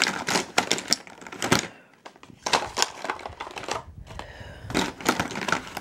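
Lipstick and lip-gloss tubes clicking and clattering against each other and a plastic drawer organizer as they are handled: a run of light, quick clicks with a short pause about two seconds in.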